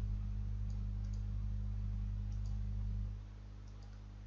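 A few faint computer mouse clicks over a steady low electrical hum; the hum drops in level about three seconds in.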